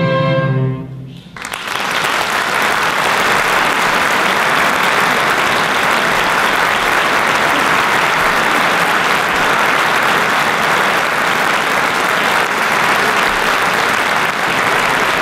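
A choir and string orchestra hold a final chord that stops about a second in. After a brief hush, audience applause starts and goes on steadily.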